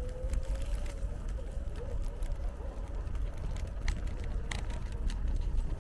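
A scooter ridden along a path: a thin, steady whine that rises slightly at first, over a constant low rumble of wind and rolling. A few sharp clicks or knocks come near the end.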